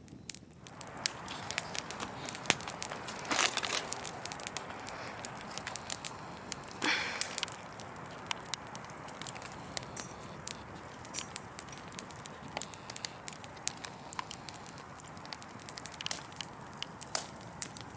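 Fireplace fire crackling, with frequent sharp pops over a steady hiss. There are two brief louder hissing surges, about 3.5 and 7 seconds in.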